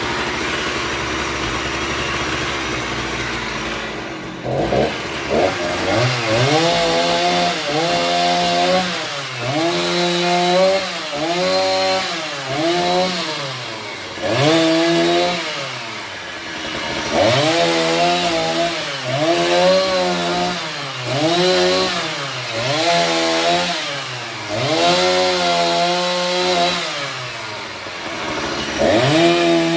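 Chainsaw engine cutting a tree: a steady running sound for the first few seconds, then from about four seconds in it revs up and sags again over and over, the pitch rising and falling every second or two as the saw is worked through the wood.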